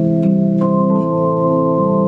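Casio electronic keyboard on an organ voice playing a slow gospel hymn in held chords, with new higher notes entering partway through and a faint click as each key strikes.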